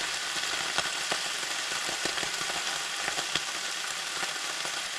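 Food sizzling and spitting in a pan on a portable butane gas cooker: a steady hiss with scattered sharp crackles.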